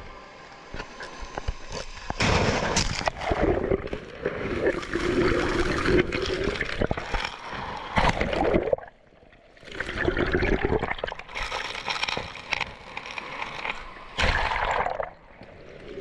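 Small waves breaking on a pebble beach and washing over a camera at the water's edge: water sloshing and bubbling over the microphone in repeated surges a few seconds apart, with a brief lull about nine seconds in.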